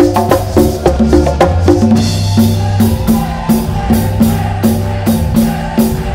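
Live band music with hand-played congas over a steady bass line; the drumming thins to an even beat of about two strikes a second about two seconds in.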